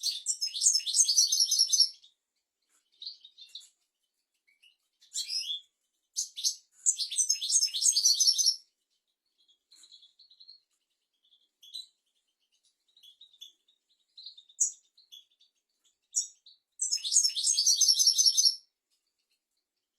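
European goldfinch singing: three bursts of fast, high twittering song, each about two to three seconds long, with scattered single chirps between them.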